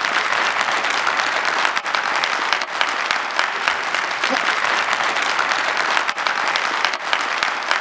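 Large audience applauding: dense, steady clapping from a seated crowd.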